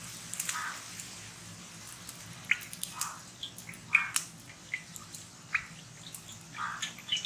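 Cooking oil poured from a plastic can into an iron kadai, the can glugging a few times as air gets in, amid short sharp clicks and crackles.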